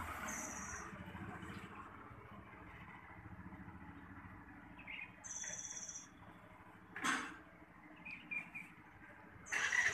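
Outdoor ambience of steady distant traffic rumble, with short high bird trills near the start, about five seconds in and at the end, and a brief scuffing noise about seven seconds in.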